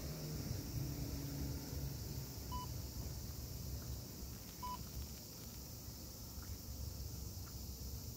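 Steady high drone of summer cicadas over a low city rumble, with two short electronic beeps about two seconds apart near the middle.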